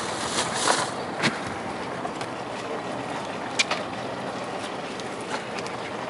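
Steady rush of a small boat underway, wind and water noise, with a couple of sharp knocks about a second in and near the middle.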